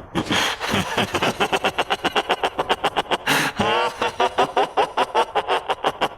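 A man's maniacal laughter, Kira's laugh from the German dub of Death Note: fast, even bursts of laughing, several a second, broken a little after halfway by a longer drawn-out cry before the rapid laughing resumes.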